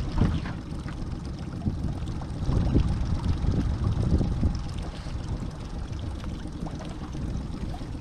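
Wind buffeting the microphone on a small open boat: a low, uneven rumble, with a few faint ticks.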